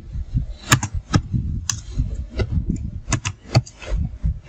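Computer keyboard being typed on: a string of irregularly spaced key clicks as a line of code is entered.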